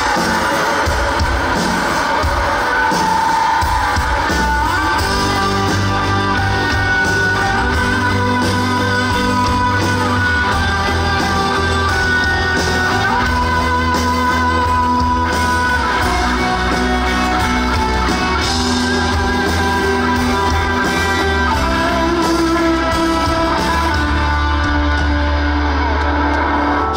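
Live band playing a pop-rock song's instrumental opening, with guitar to the fore over a steady bass line.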